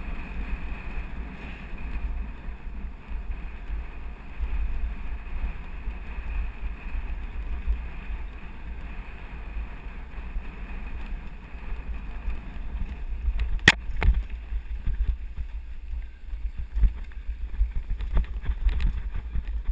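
Wind buffeting a GoPro's microphone on a fast mountain-bike descent of a dirt forest road, over a steady low rumble and rattle from the ride. There is a sharp knock about 14 seconds in, and more knocks and clicks near the end as the ground gets rougher.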